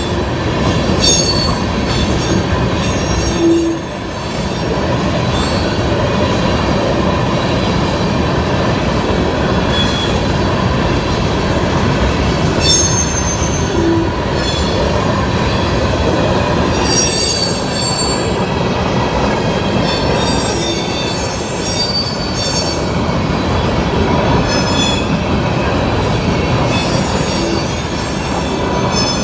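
Empty CSX coal unit train rolling past at speed: a loud, steady rumble and rattle of wheels on rail, with high-pitched wheel squeals coming and going every few seconds.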